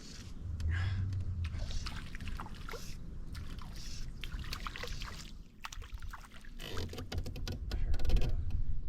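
Water splashing and sloshing at a canoe, with quick clicks and knocks of handling, over a low rumble that comes and goes.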